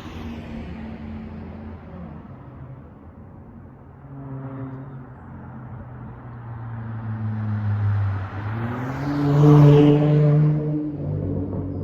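Dodge Charger SXT's V6 exhaust through a Flowmaster Outlaw system at low street speed, running steadily. It picks up briefly about four seconds in, then rises in pitch and loudness under throttle about nine seconds in before easing off.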